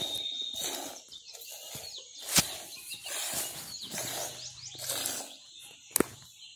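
Hand milking of a cow into a steel pail: squirts of milk hiss into the frothy milk in a steady rhythm. Two sharp knocks stand out, about two seconds in and near the end.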